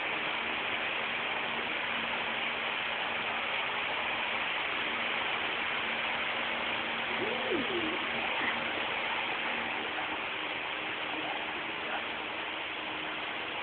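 Steady background hiss of room noise with a faint low hum underneath. About halfway through, a brief faint sound rises and falls in pitch.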